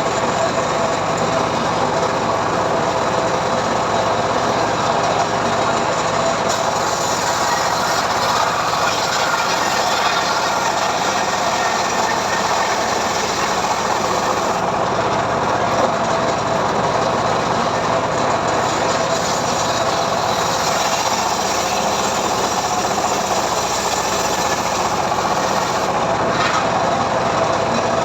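Homemade engine-driven sawmill saw running steadily while ripping a mahogany log lengthwise, the engine's drone mixed with the blade cutting through the wood.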